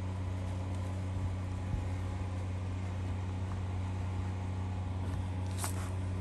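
Steady low hum of an idling engine, with one short scrape of a hand scraper on the van's hood strip about five and a half seconds in.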